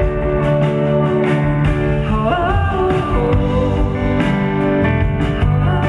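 Live band playing an upbeat song with acoustic guitar, drum kit and congas, with regular drum hits under sustained chords.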